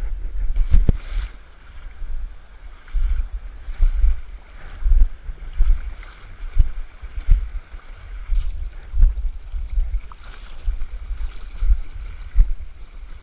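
Legs wading through shallow river water, sloshing and splashing with each stride in an uneven walking rhythm.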